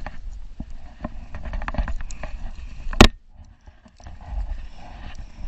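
Irregular footsteps and knocks on a concrete slab as a person walks along it, with one sharp, loud knock about three seconds in, after which the sound drops away for about a second.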